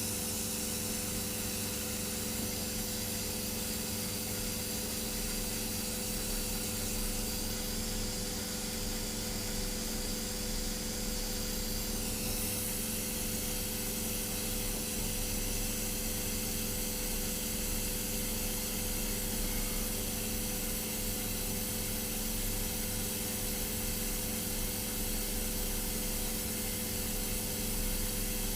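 Hydrogen-oxygen soldering torch burning with a steady hiss, over a steady electrical hum; the hiss changes slightly in tone about twelve seconds in.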